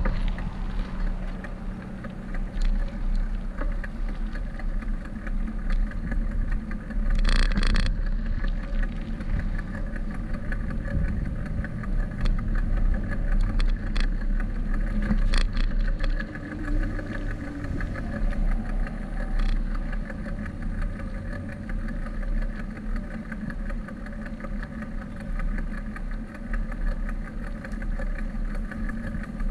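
Wind buffeting the microphone of a camera riding on a moving bicycle, with a steady deep rumble of road noise and traffic; a short burst of hiss comes about seven seconds in.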